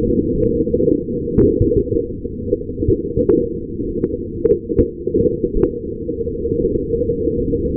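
A camera riding along a plastic Hot Wheels track, its rolling and rattling slowed eight times into a deep, continuous rumble with a few sharp clicks scattered through it.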